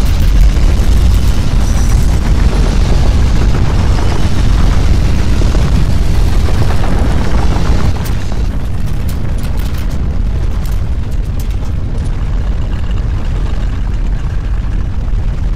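Loud, deep earthquake rumble, a dense low roar of shaking ground. About eight seconds in it eases a little and sharp clicks and rattles come through.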